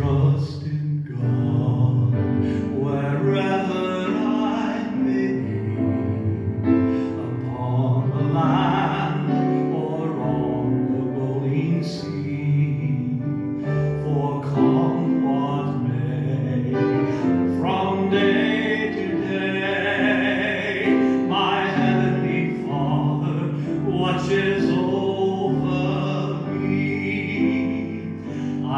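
A male vocalist singing a gospel hymn with a sustained musical accompaniment.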